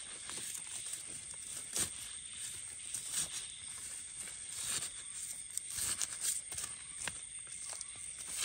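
A knife blade scraping and digging in soil and leaf litter, with gloved fingers lifting out clusters of small termite mushrooms. It makes soft, irregular scrapes, rustles and little clicks.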